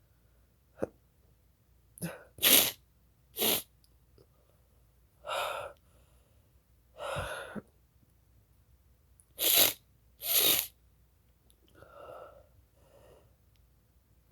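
A person sneezing again and again, set off by snuffing chhinkni sneezing powder. A string of separate sneezes with short pauses between them; the loudest come in a pair about two and a half seconds in and another pair about nine and a half seconds in.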